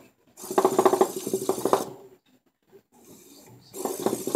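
A small two-wheeled robot car's drive motors whirring with a rasping buzz as it drives and turns across the tabletop, in two bursts: a longer one about half a second in and a shorter one near the end.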